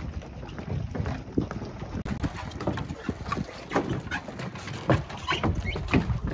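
Footsteps clunking on a floating boat dock and stepping onto a pontoon boat's deck, with knocks of carried fishing gear, growing busier from about three seconds in, over a low rumble of wind on the microphone.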